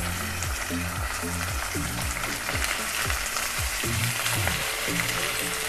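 Raw pork pieces sizzling steadily in hot oil with onions and green chillies as they are added to a nonstick wok. Soft background music plays underneath.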